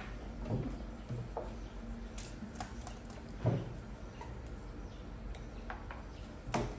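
Scattered light ticks and snaps with a few soft knocks, from leafy stems being picked over and dropped into a plastic tray; the loudest knock comes about three and a half seconds in.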